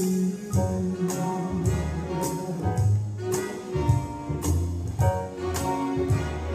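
Recorded jazz band music with brass and a steady beat of about two hits a second, played through a hall's loudspeakers for a dance routine.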